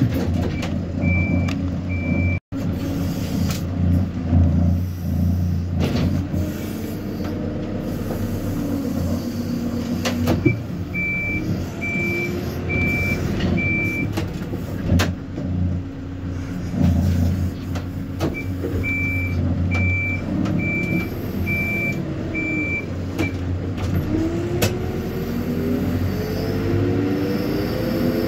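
Hidromek HMK 102S backhoe loader's diesel engine running steadily, with a reversing alarm sounding in three runs of evenly spaced high beeps, a little over one a second. Near the end the engine pitch rises as it revs up, with occasional knocks from the machine working.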